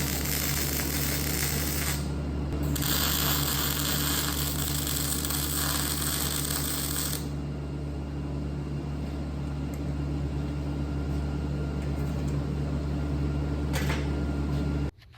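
Arc welding on the steel brackets: a steady electrical hum from the welder, with two long bursts of welding crackle in the first half and a short one near the end.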